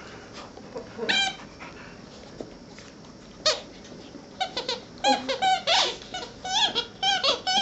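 Entlebucher Mountain Dog puppy squealing and yelping in play with an older dog. There are single high squeals about a second in and halfway through, then a quick run of squeals and yelps over the last three seconds.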